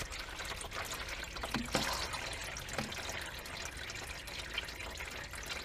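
Used engine oil draining from the car's open oil sump into a plastic drain pan: a steady trickle of several thin streams, with occasional drips.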